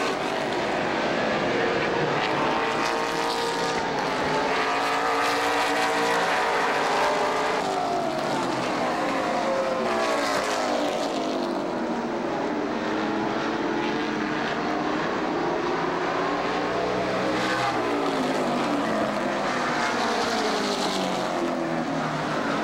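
Several super late model stock cars' V8 engines running hard in a pack, the pitch of each rising and falling as they accelerate, lift and pass.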